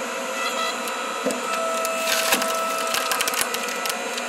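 Hydraulic log splitter running and driving its wedge into a dry pine log; the machine takes on a steady whine under load and the wood cracks and splinters in a quick run of snaps as the log splits open.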